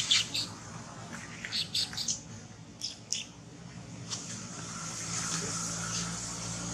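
Short, high chirps and squeaks from animals in several quick clusters during the first three seconds, then a steady high-pitched hiss sets in behind them.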